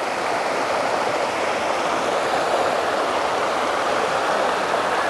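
Water rushing steadily, a dense even hiss with no breaks.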